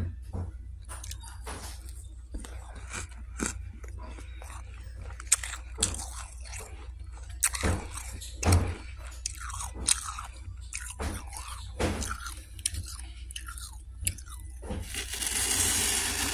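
A person biting and chewing mouthfuls of freezer frost: a run of irregular crunches, a few much louder and sharper than the rest. A steady hissing rustle fills the last second or so.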